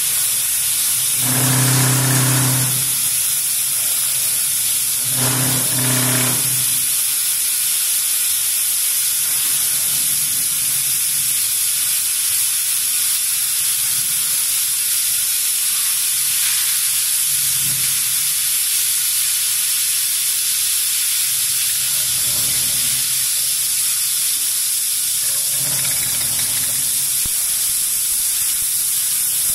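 CNC pantograph cutting machine running with a steady loud hiss. Short humming tones come and go now and then as the machine moves, twice strongly in the first seven seconds.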